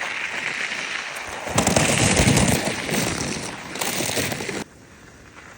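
Strong wind buffeting the microphone: a loud crackling rumble that drops off suddenly near the end.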